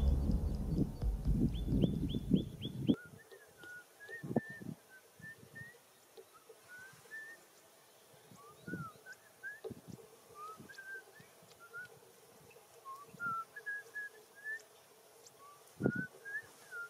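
For the first few seconds, a louder low rustling rumble with quick runs of high chirps. Then a quiet field with scattered short bird chirps and a few soft thumps of footsteps in grass.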